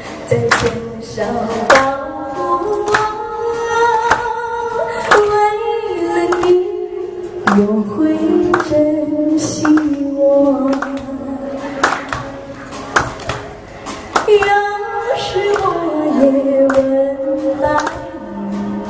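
A woman singing a slow melody into a microphone, holding long notes and gliding between them, over backing music with a regular beat.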